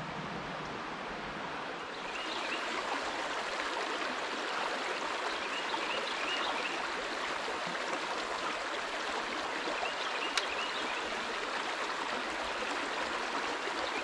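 Creek water flowing steadily over rocks in a shallow riffle, a little louder from about two seconds in.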